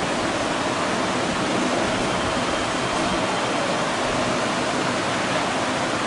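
Steady, even hiss of background noise, unchanging throughout, with no distinct event standing out.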